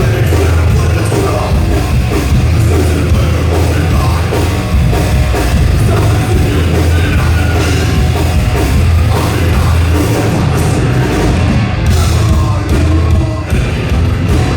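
Thrash metal band playing live at full volume: a loud, dense wall of heavy metal.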